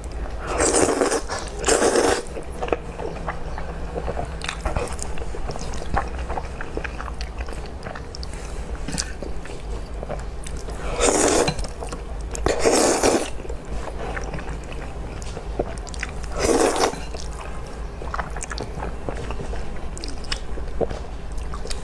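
Close-miked eating of spicy noodles: steady chewing, with five louder noisy bursts of about half a second each, two near the start, two around the middle and one a little later.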